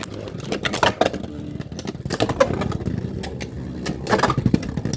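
Two Beyblade X tops, one of them Dran Buster, spinning and clattering in a plastic stadium: a steady whir with many quick, sharp clacks as they collide with each other and the stadium walls.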